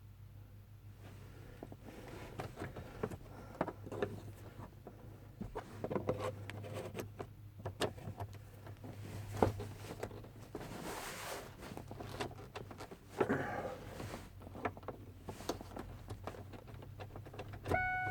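A screwdriver clicking and scraping against the steering column and ignition lock cylinder of a Ford F-150 while the cylinder's release ball is pressed in and the cylinder is worked loose: scattered small clicks and knocks over a low steady hum. A steady pitched warning tone starts just before the end.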